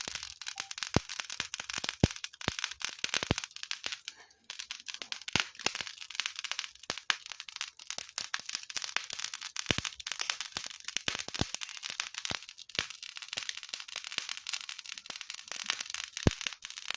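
Fire crackling: a dense, steady crackle with frequent sharp pops at irregular intervals.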